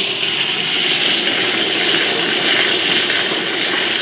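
Dry pyrotechnic stars sliding as a mass against the polished wall of a spinning stainless steel star-roller drum at high speed, a steady noise with no tumbling: the stars are slipping on the smooth stainless surface instead of cascading.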